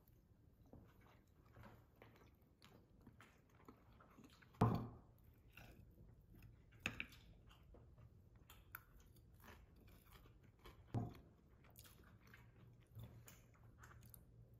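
Someone chewing food, likely a breakfast burrito, in faint wet, crunchy bites, with three louder knocks about a third of the way in, halfway through and about three quarters through.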